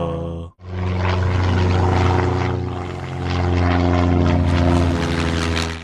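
Propeller airplane engine droning steadily as a cartoon sound effect. It cuts out briefly about half a second in, then runs on, swells and eases, and fades at the very end.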